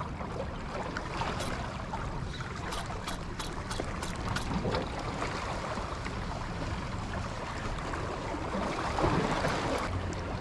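Seashore ambience: waves washing, with wind buffeting the microphone as a low rumble, swelling briefly near the end.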